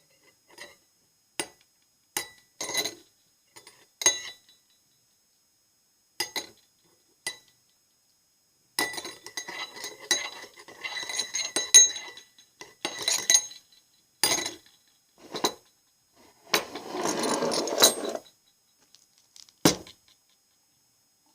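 Small hard objects clinking and tapping, with short ringing tones, as ASMR sounds close to the microphone. The taps are scattered at first, then come in a dense run of clinks. A longer scraping rustle follows near the end.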